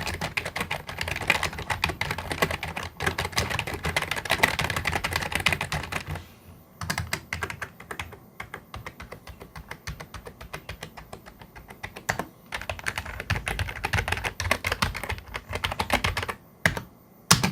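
Typing on an A4tech Bloody B150N membrane gaming keyboard: a fast, dense run of key presses for the first six seconds, sparser presses in the middle, then another fast run that stops shortly before the end.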